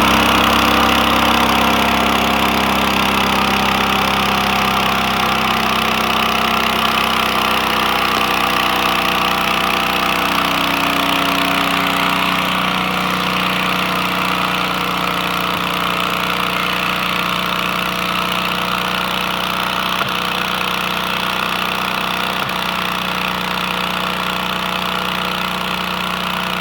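Engine of a mobile dimensional lumber sawmill running steadily with an even droning hum, slowly getting a little quieter.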